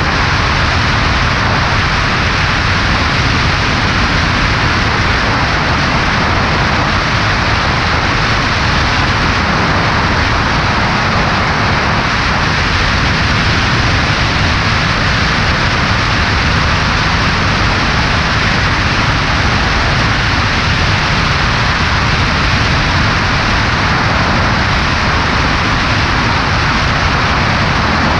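Steady, unchanging rush of airflow mixed with the Cessna 140A's engine and propeller, picked up by a camera on the wing in flight.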